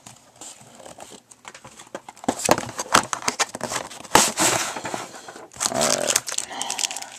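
Card packaging handled close to the microphone: rustling and scraping of cardboard and foil wrapper, with scattered knocks and clicks that grow busier about two seconds in.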